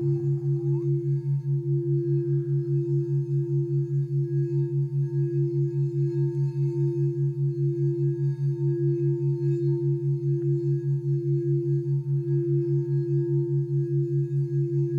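Singing bowl tones blended with background brain-entrainment tones into one steady meditation drone: a low tone beating several times a second under a steady higher tone.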